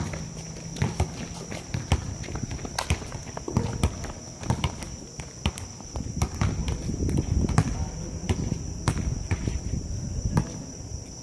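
A basketball bouncing and players' running footsteps on a hard outdoor court: a string of sharp, irregular thuds. A steady high-pitched tone runs underneath.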